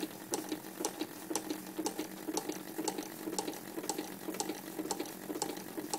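Small model steam engine running on compressed air at about 10 pounds of pressure: a steady rhythmic clicking and puffing, about two strong beats a second.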